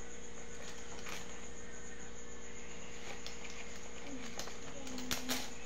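Crickets trilling steadily in the background, with a few sharp clicks, the loudest two close together about five seconds in.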